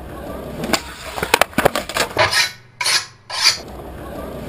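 Skateboard clacking and knocking on concrete: several sharp clicks about a second in, then a couple of short hissing rushes near the middle.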